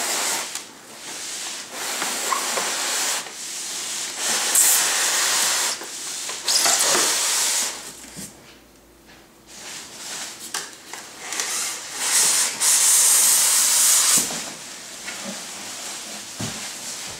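Cardboard and styrofoam scraping and rubbing as a large foam packing block is slid out of a cardboard box, in several long stretches with a quieter pause about halfway through.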